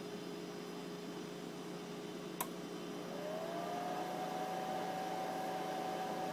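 Huanyang HY02D223B variable-frequency drive powering up over a steady mains hum: a single sharp click a little over two seconds in, then a whine that rises in pitch and settles into a steady tone.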